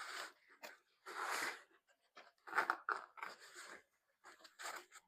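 Handling noise: fabric and plastic rustling and scraping in several irregular short bursts as an articulated prop arm is worked into a costume jacket sleeve.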